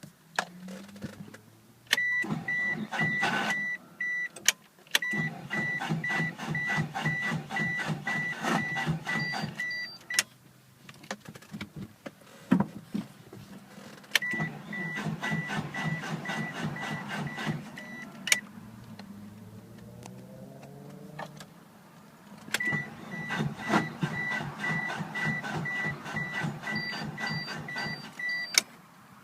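1996 Mitsubishi Eclipse GST starter clicking and chattering rapidly in four long tries at cranking, without the engine catching, while a high chime beeps steadily during each try. The owner suspects a bad starter.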